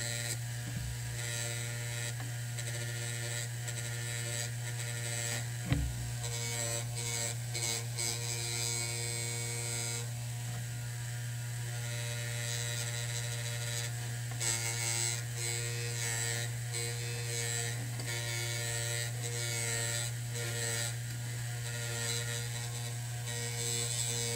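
Bench grinder running steadily with a cloth buffing wheel, its motor humming, while a steel sword blade is pressed against the spinning wheel for polishing, giving a hissing rub that swells and fades as the blade is worked along it. One short knock about six seconds in.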